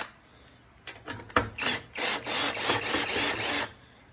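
Socket ratchet clicking in a quick run of short strokes for about two seconds, starting about a second in, as a 5/8 socket drives in a bolt that is not wanting to go in.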